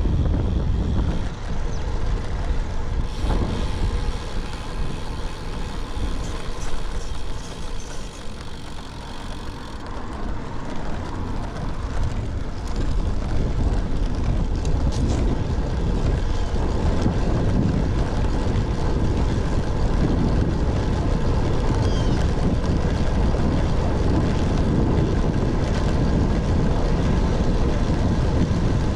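Wind rushing over an action camera's microphone on a moving road bike: a steady low rush that eases off for a couple of seconds around eight seconds in.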